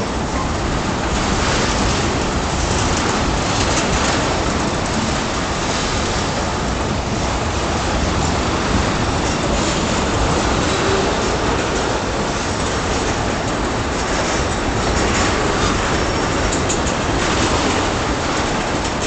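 Freight train tank cars rolling past on steel wheels: a steady rumble of wheels on rail with clacking over the rail joints, and a faint high wheel squeal now and then on the curve.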